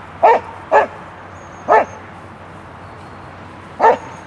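A dog barking: four sharp single barks, two in quick succession, a third about a second later, and a fourth about two seconds after that.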